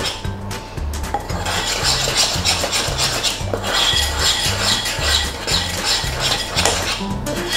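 Spoon stirring and scraping around a ceramic bowl, mixing food colouring into icing, over background music with a steady repeating bass line.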